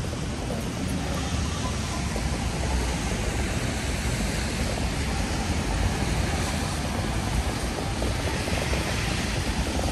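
Steady rainy city-street ambience: an even hiss over a low rumble, with no distinct events standing out.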